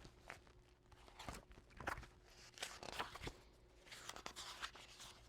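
Faint rustling and scattered light clicks of a picture book being handled and its pages turned.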